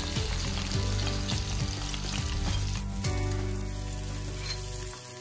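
Chopped garlic and red onion sizzling steadily in hot oil in a wok, stirred with a wooden spatula near the end.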